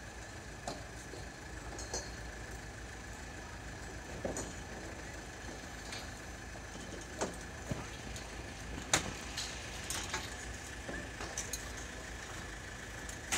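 Mobile crane's diesel engine running steadily with a constant whine while holding a suspended building module. Scattered sharp knocks and clanks sound over it, the loudest about nine seconds in.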